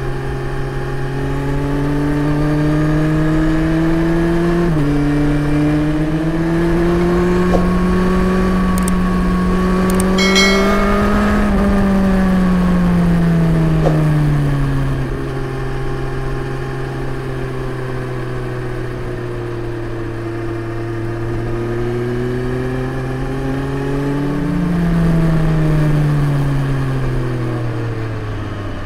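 Suzuki GSX-S 1000 GT's inline-four engine through a Yoshimura R77S slip-on exhaust, riding under load. Its pitch climbs, drops sharply at an upshift about five seconds in, and climbs again. It then falls away as the throttle closes, holds steady for a while, and swells once more before easing off near the end.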